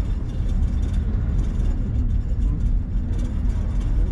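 Steady low rumble inside a moving cable car cabin as it runs along its cable.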